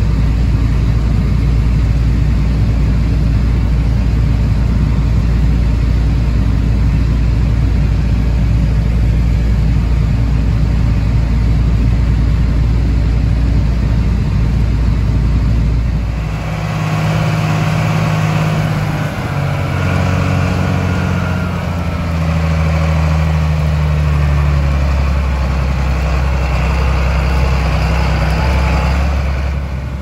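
Steady low diesel drone of harvesting machinery heard from inside a tractor cab running beside a John Deere 9660 STS combine harvesting corn. About sixteen seconds in the sound switches abruptly to a different engine hum, with several steady tones that shift in pitch every few seconds.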